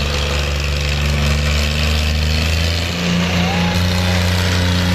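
John Deere tractor's diesel engine running hard under a heavy pulling load, a steady deep drone whose pitch shifts briefly about three seconds in.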